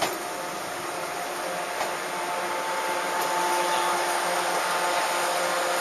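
JR 113 series electric train standing at the platform, its onboard machinery giving a steady whir with a faint hum that grows a little louder about two seconds in. A single click right at the start.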